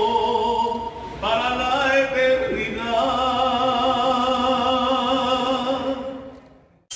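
A man singing unaccompanied into a microphone, holding long notes with vibrato: a short held note, a new phrase rising about a second in, then one long held note that fades out near the end.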